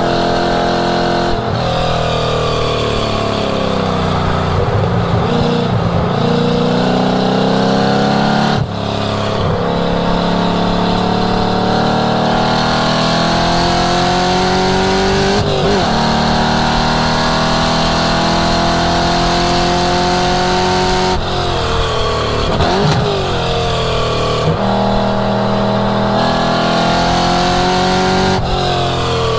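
1967 Ford Mustang's cammed V8 at high revs on track. The pitch climbs under acceleration and drops sharply at each gear change or lift, about five times. There are longer falling sweeps as it slows for corners.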